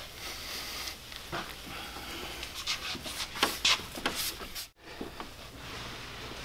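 Cloth rubbing over the painted hood in short scrubbing strokes to wipe off leftover decal adhesive. The strokes are loudest about three seconds in, and the sound cuts out briefly near the end.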